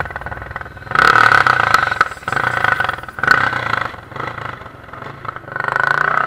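Enduro motorcycle engine revving in several bursts, swelling loud about a second in, again twice in the middle and once more near the end, and falling back toward idle between them.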